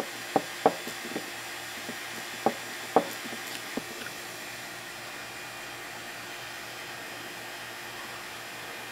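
Several sharp clacks in the first four seconds as a C4 Corvette pop-up headlight motor and hand tools are handled and set down on a wooden workbench, over a steady background hiss.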